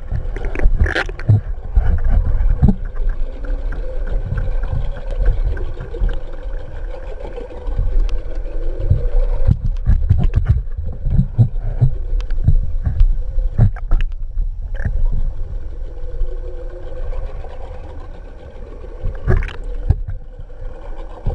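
Muffled underwater sound from a submerged camera: low rumbling water noise with irregular knocks, over a faint steady hum of a boat engine carried through the water.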